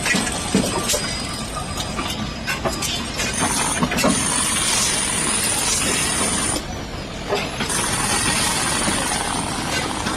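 Aluminium formwork panels being stripped: scattered metallic knocks and clatter over a steady din of site noise, with a thin high whine that drops out for about a second midway and comes back.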